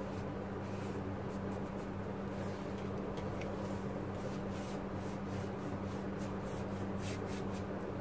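Paintbrush stroking wet watercolour across paper: faint brushing and scratching strokes, coming more often in the second half, over a steady low hum.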